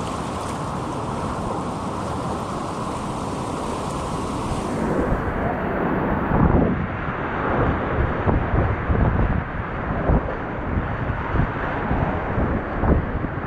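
Whitewater rapids rushing around a kayak, heard through an action camera close to the water. About five seconds in the sound turns duller, and irregular loud splashes and surges of water and wind buffeting the microphone follow as the boat runs through the waves.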